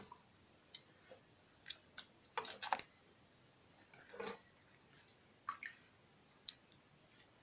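Opossum making its clicking call: sharp single clicks at irregular intervals, with a quick run of clicks about two and a half seconds in. The clicking is the animal calling to others of its kind.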